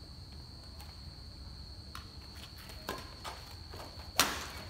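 Badminton rally on a concrete court: rackets hitting the shuttlecock a few times, then a loud, sharp crack of a jump smash about four seconds in, with players' footsteps on the court. A steady high chirring of insects runs underneath.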